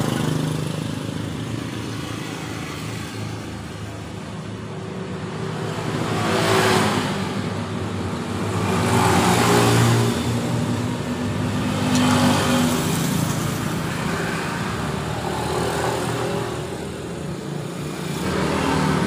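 Motor traffic going by: a steady engine drone, with several vehicles swelling past one after another.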